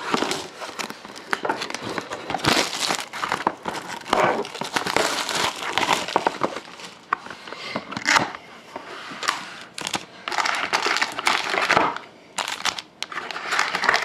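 Plastic wrapping on a box of hockey trading cards crinkling and tearing in irregular bursts as the box is opened.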